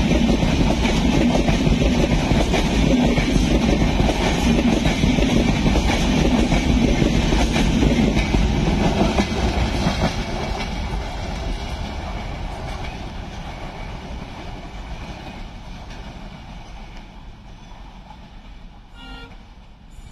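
Express train of LHB coaches running through on the near track at speed, wheels clattering over the rails. The last coach passes about eight to ten seconds in, and the noise fades steadily as the train runs off into the distance.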